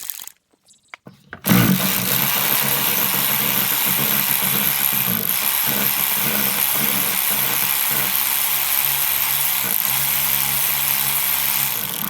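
A power tool's motor starts abruptly about a second and a half in and runs steadily at one speed for about ten seconds.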